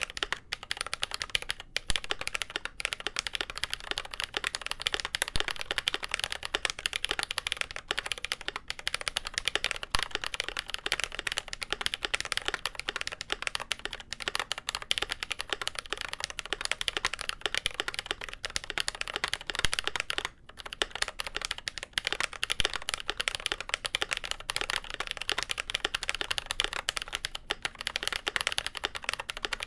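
Continuous fast typing on a GMMK Pro mechanical keyboard with lubed Glorious Panda tactile switches on a polycarbonate plate and GMK doubleshot keycaps. The keystrokes make a dense run of clicks, with a brief pause about twenty seconds in.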